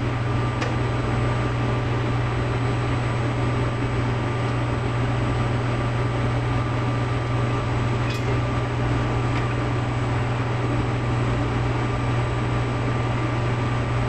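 Steady machinery hum with a constant high whine over it, from running HVAC plant equipment. A few faint clicks, about half a second in and again around eight and nine seconds, as multimeter probes touch the terminals.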